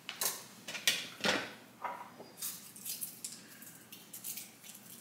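Clinks and knocks of a champagne bottle and glassware being handled on a countertop: a few sharp taps in the first two seconds, then a brief hiss about halfway through.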